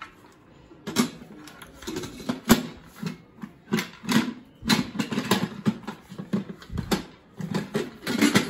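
Lid of a Mealthy MultiPot electric pressure cooker being lowered onto the pot and twisted to lock. It makes irregular knocks, scrapes and clicks of plastic against metal.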